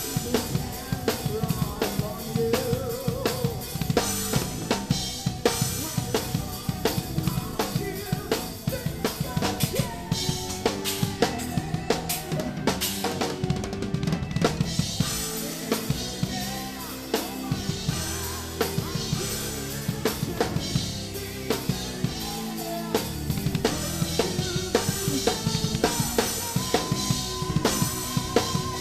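Rock drum kit played live in a progressive metal song: rapid bass drum, snare and cymbal hits, with the band's other pitched instruments sustaining notes underneath.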